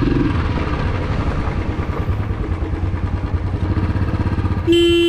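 Royal Enfield Classic 350's single-cylinder engine running under way with an even pulsing beat, and a short horn honk about half a second long near the end.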